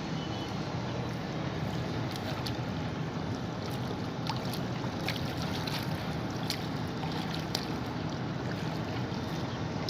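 Steady low rumbling noise with scattered faint clicks.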